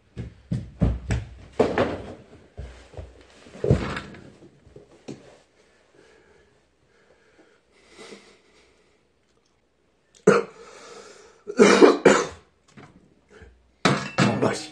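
A man coughing and clearing his throat in a couple of loud bursts, after a run of short knocks and clatter from dishes being handled. There is a brief clatter near the end as rice is tipped from a metal bowl into a metal pot.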